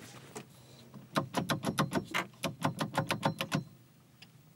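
Rapid rattling clicks, about six a second for some two and a half seconds, from a joint in a yacht's steering linkage under the wheel as it is worked back and forth by hand. This is the rattle being traced; the fitting is a bit loose.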